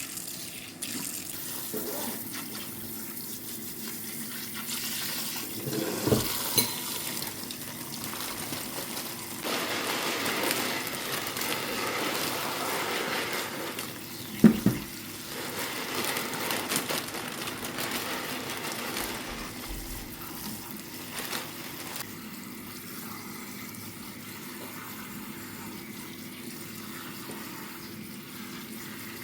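Water running from a kitchen tap into a sink, the flow heavier for a few seconds near the middle, with a few short knocks.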